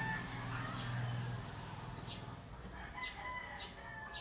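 Chalk scratching on a chalkboard in short strokes as a letter is written, with long held bird calls in the background.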